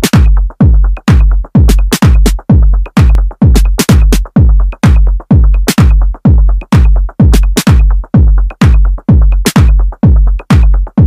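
Electronic dance music with a heavy drum-machine kick on a steady beat, about two beats a second.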